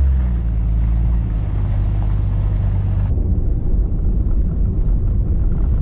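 Steady low drone of a 1998 Jeep Grand Cherokee (ZJ) cruising on a highway: engine hum with road noise. About three seconds in the higher hiss drops away abruptly, leaving a rougher low rumble.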